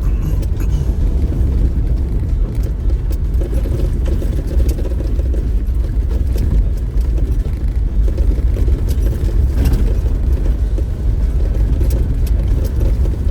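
Off-road vehicle driving slowly over a rough dirt trail: a steady low rumble of engine and tyres, with a few light knocks.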